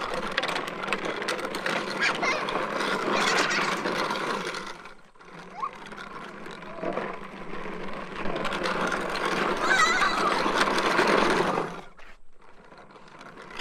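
Hard plastic wheels of a toddler's tricycle rolling and rattling over rough, gravelly pavement. The noise dips briefly about five seconds in and stops near the end as the trike comes to a halt.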